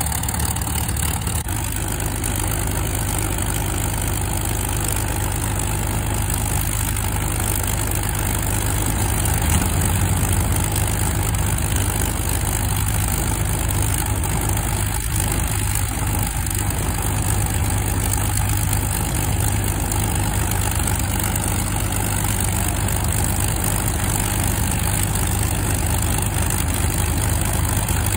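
De Havilland Mosquito's Rolls-Royce Merlin V12 piston engine running steadily at idle after start-up, with a slight swell in loudness about ten seconds in.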